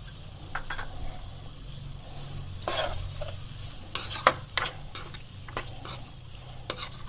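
Plastic spoon stirring beef pieces and cream in a nonstick wok, with scattered scrapes and clicks against the pan and one sharper knock a little after the fourth second, over a light sizzle of the masala frying on a low flame. A steady low hum runs underneath.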